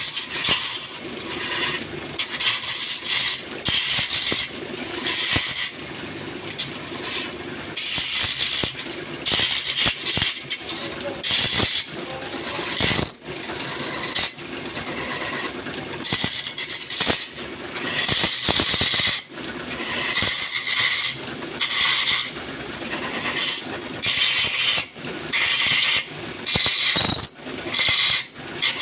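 Wood lathe running with a turning tool cutting into the spinning wood in repeated short passes, about one every second or so, each pass giving a high scraping squeal over the lathe's steady hum.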